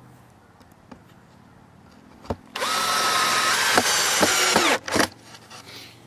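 Cordless drill driving a screw through a wooden hive top board: a click about two seconds in, then the motor runs hard for about two seconds and winds down at the end, followed by a brief second burst.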